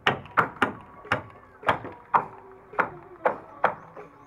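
Hand hammering on the wooden hull of a boat being built: about nine sharp blows, roughly two a second at an uneven pace, each with a short ringing tail.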